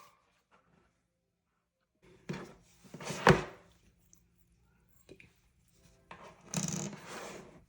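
Packaging being handled: rubbing and scraping, with one sharp knock about three seconds in and a longer rustle near the end.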